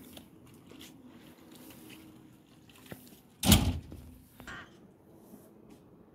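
A single loud thump about halfway through, followed by a smaller knock a second later, against faint scattered clicks and rustles.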